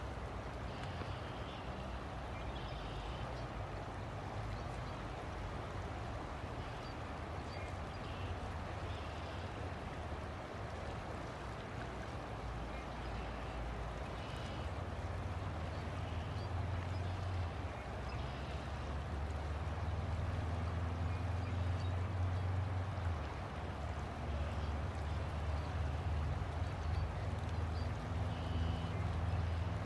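River water flowing steadily, with a low rumble underneath that grows louder about halfway through.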